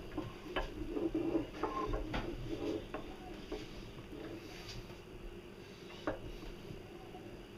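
Corn grinder grinding cooked taro into poi, with a stick pushing the taro down into it: irregular clicks and knocks, busiest in the first few seconds, then sparser.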